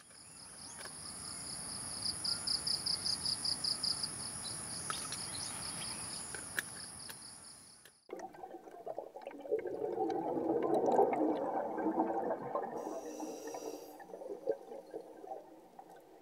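Forest ambience with a steady, high insect drone that pulses for a while. About halfway through it cuts abruptly to a muffled, churning water sound with bubbling, as heard underwater.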